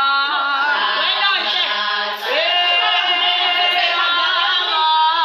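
A group of young women singing together without instruments, several voices overlapping and holding notes.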